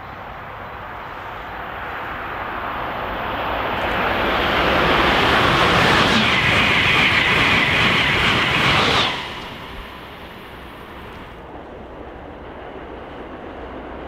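A passenger train passing at speed: rushing wheel-and-rail noise builds for several seconds, with a high steady whine over the loudest stretch, then drops away suddenly about nine seconds in.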